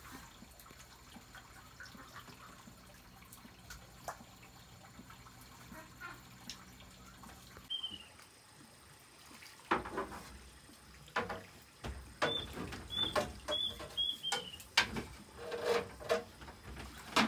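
A hooked fish splashing at the pond surface: after a quiet first half, a string of sharp, loud splashes. A small bird gives a quick run of short chirps among them.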